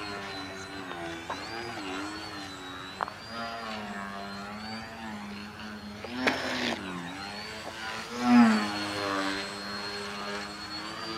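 Electric motor and propeller of a Crack Yak foam aerobatic RC plane, its pitch rising and falling with the throttle, with a thin high motor whine above. A brief noisy burst comes about six seconds in, and a short throttle surge, the loudest moment, comes a couple of seconds later.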